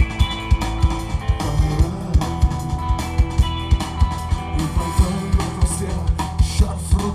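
Instrumental passage of a song cover: guitar over a drum kit with a steady, regular beat.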